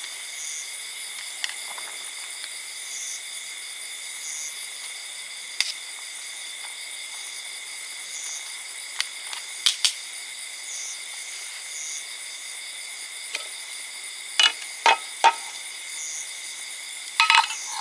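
Steady high-pitched drone of forest insects, with a short chirp repeating about once a second. Several sharp knocks cut through it, three in quick succession about fifteen seconds in and a cluster near the end.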